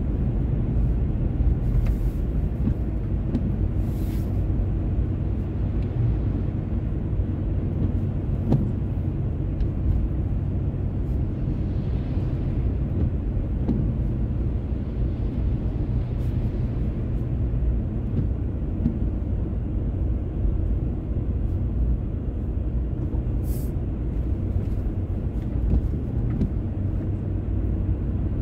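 Car driving on a wet road, heard from inside the cabin: a steady low rumble of engine and tyres, with a few brief faint clicks and two soft swells of hiss around the middle.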